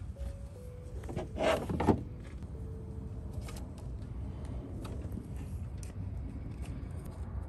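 Close handling of automotive wiring and a blue tap-splice connector: a brief loud rustle about a second and a half in, then light clicks as a hand crimping tool is closed on the connector, over a steady low background rumble.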